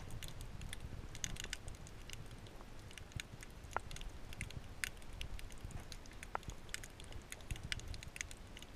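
Underwater crackle of many irregular sharp clicks over a steady low rumble, picked up with the microphone underwater.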